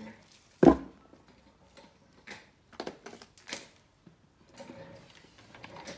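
A sharp thump about half a second in, then a few light clicks and soft rustling as hands work yarn with a crochet hook.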